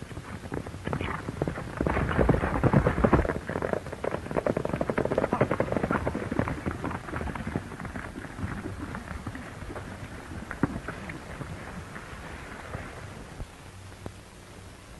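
Several horses galloping over dirt: a dense clatter of hoofbeats that swells over the first few seconds, then gradually fades away.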